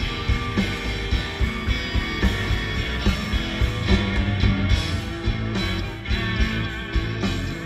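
Rock band playing live, with electric guitars, bass and drums keeping a steady beat, heard on an audience recording.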